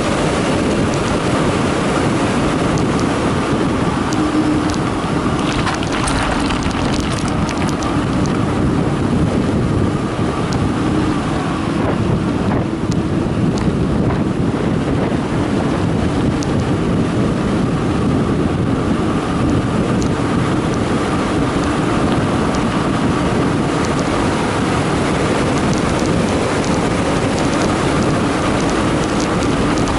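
Wind rushing over the microphone and tyre noise from a Carraro Big 827 mountain bike descending a concrete road at speed, steady throughout, with occasional light clicks and rattles.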